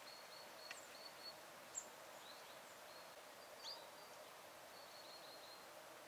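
Faint, scattered high-pitched chirps and short call notes of small songbirds, some in quick runs of repeated notes, over a low steady background hiss.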